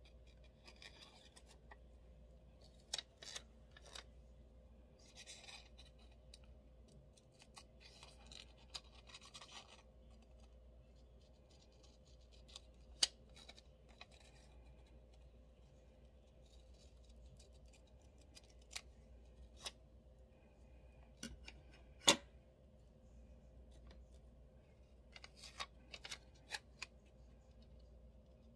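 Scissors snipping and paper rustling as planner stickers are cut out and handled, in short spells with pauses between, with scattered light taps and clicks and one sharper click late on.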